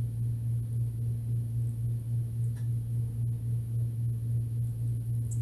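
A steady low hum, unchanging throughout, with nothing else clearly heard.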